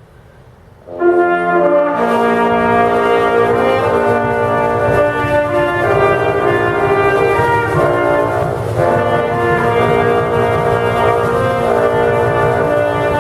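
Bagpipe striking in about a second in: the drones sound first, then the chanter starts a tune over the steady drone.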